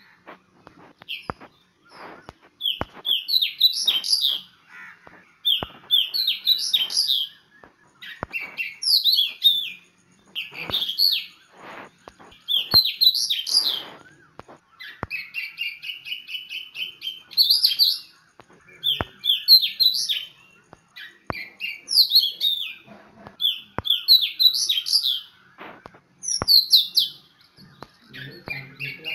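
A songbird singing, repeating a short phrase of quick high chirps about every two seconds, with sharp clicks scattered between the phrases.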